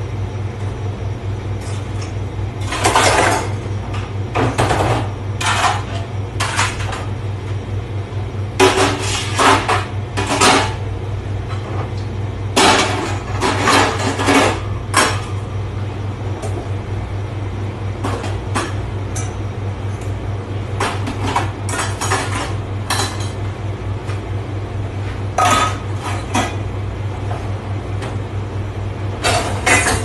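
Dishes and stainless steel pans clattering in irregular bursts as they are handled and stacked into dish racks, over a steady low machine hum.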